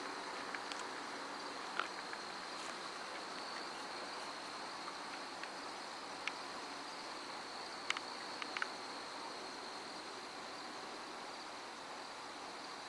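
Crickets chirping in a steady, high-pitched chorus, with a few faint clicks here and there.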